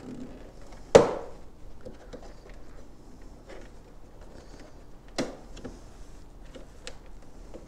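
Plastic trunk side panel of a 2023 Honda Goldwing being worked loose by hand: a sharp snap about a second in and another about five seconds in as its tabs pop free, with smaller clicks and plastic rubbing and rattling between.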